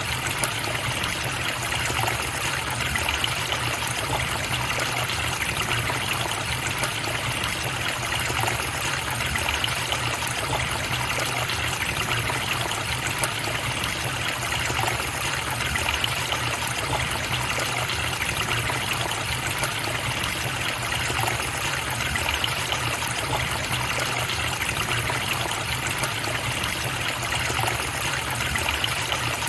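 A forest river or stream flowing and trickling steadily, with no change in its sound.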